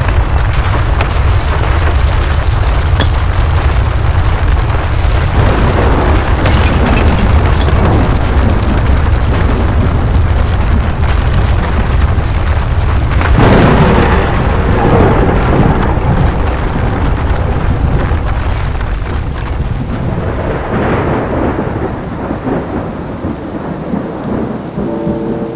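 Thunderstorm sound effect: a deep, continuous rumble of thunder over heavy rain, with a louder crash of thunder about halfway through. The rumble eases off toward the end.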